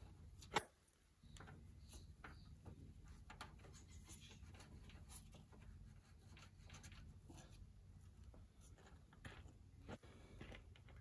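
Near silence: a faint low hum with scattered light clicks and taps, the sharpest about half a second in.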